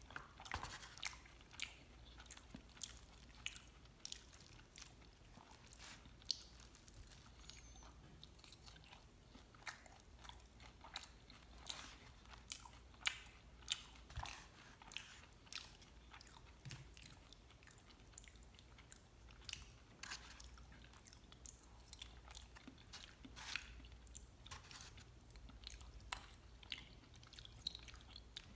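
Quiet mouth sounds of chewing chilaquiles, soggy sauced tortilla chips with a little crunch. Irregular short clicks come from a metal fork picking at food in a styrofoam takeout container.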